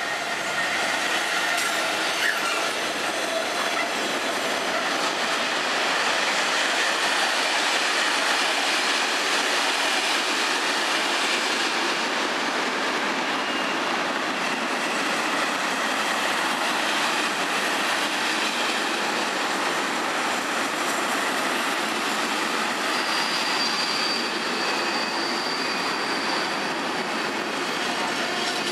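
A Class 66 diesel locomotive passes at the head of a long intermodal container train, followed by the container wagons rolling past with steady wheel and rail noise. Faint high wheel squeal comes in during the later part.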